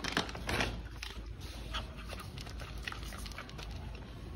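A rustle of the dry dog food bag near the start, then a dog eating kibble off a concrete floor, with small scattered crunches and clicks and some panting.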